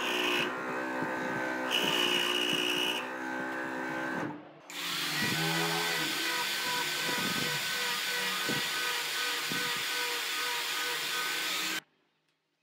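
Luxter scroll saw running, its blade cutting a circle out of a small wooden block. After a short dip about four seconds in, an angle grinder with a sanding pad runs steadily, sanding the edge of the wooden disc, and stops suddenly near the end.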